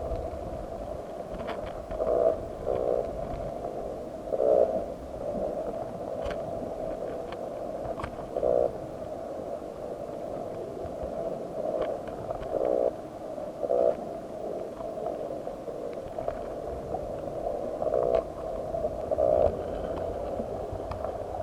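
Muffled underwater sound from a submerged camera: a steady hum with short, louder pulsing bursts every second to four seconds and scattered faint clicks.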